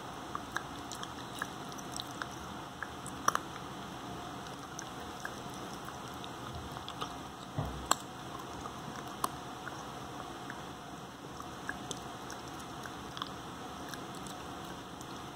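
Corgi puppy chewing a dental chew: irregular sharp clicks and crunches of teeth on the hard chew, two of them louder, about three and eight seconds in, over a steady faint hiss.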